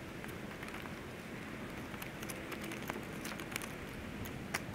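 Light clicks and crinkles of hands handling a replacement plastic side-mirror assembly and the paper tags attached to it, a few scattered ticks mostly in the second half, over steady low background noise.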